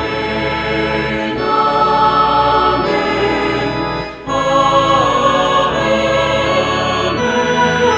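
Choral music: voices holding slow, sustained chords that change every second or so, with a brief drop in level about four seconds in.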